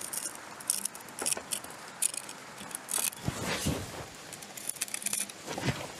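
A hand-held metal scriber scratching and clicking against the foot of a log post as the post is scribed to fit the stone beneath it. The scrapes and light metallic clinks come at irregular moments, the sharpest a little after three seconds in.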